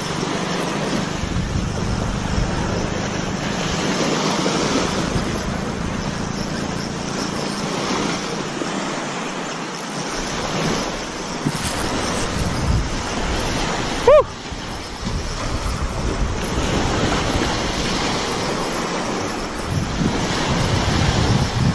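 Small waves washing up onto a sandy beach, with wind on the microphone. A single short pitched chirp about two-thirds of the way through.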